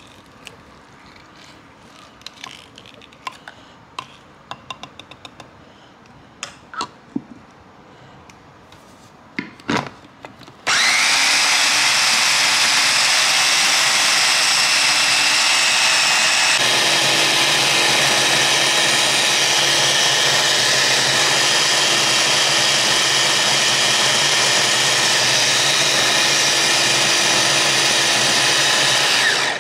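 Electric bowl food chopper running steadily for about twenty seconds, grinding a chopped chili and shallot mixture into a smooth sambal paste. The motor starts suddenly about a third of the way in, its tone shifts about halfway through, and it cuts off just before the end. It is preceded by a run of small clicks and knocks.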